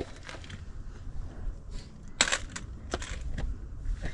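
Footsteps crunching and scraping on rock and gravel on a steep climb, with several sharp knocks, the loudest a little over two seconds in, over a low rumble.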